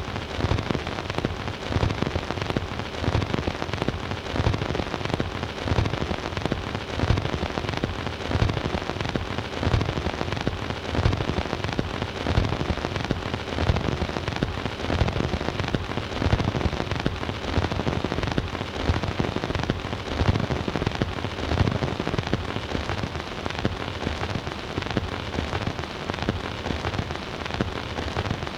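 Surface noise of a 78 rpm shellac record in its lead-in groove on a Bush record player: steady hiss with dense crackle and pops and low thumps recurring at a steady pace, with no music.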